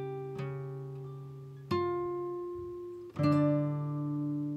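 Background music: slow plucked chords that ring out and fade, with a new chord struck about every one and a half seconds.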